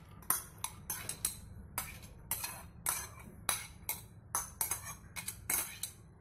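A steel spoon scraping and tapping against a glass bowl and a pressure cooker while soaked chana dal is spooned in: a run of sharp, irregular clinks, two or three a second.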